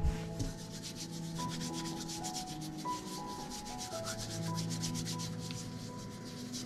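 Hands scrubbing a powder-coated lemon, palms rubbing the peel in quick, even strokes several times a second, to strip the wax from a store-bought lemon's skin.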